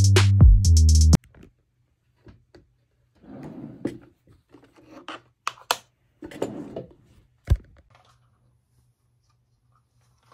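Electronic music with a drum-machine beat cuts off about a second in. Then come quiet scattered clicks and short rubbing and scraping noises, with a single sharp knock about three-quarters of the way through.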